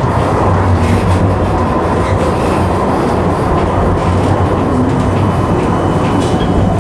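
Tram running along its rails: a steady, loud rumble of wheels and traction gear with faint clicks from the track.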